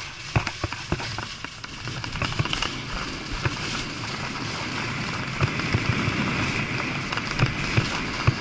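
Skis sliding and scraping over tracked snow with a steady hiss, and scattered sharp clicks and knocks in the first two seconds or so, under low wind rumble on the microphone.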